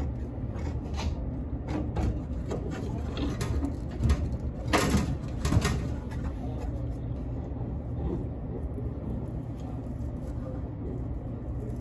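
Clicks and small scrapes of metal fittings being handled on refrigeration copper piping as a refrigerant hose is connected to a brass fitting, with two short, louder bursts of noise about five seconds in, over a steady low hum.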